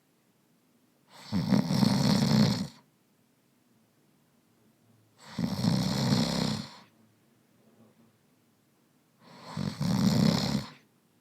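Snoring: three long, rasping snores with a breath about every four seconds and quiet in between.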